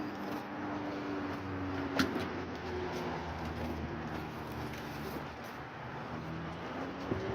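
Steady motor vehicle engine and road noise, with a single sharp click about two seconds in.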